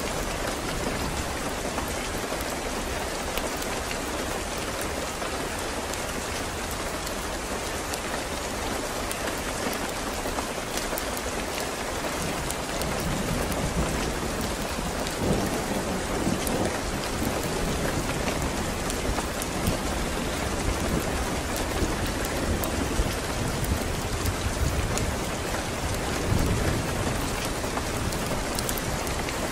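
Steady heavy rain hissing, with fine scattered drop ticks. About halfway through, a low rumble of distant thunder builds in and comes and goes.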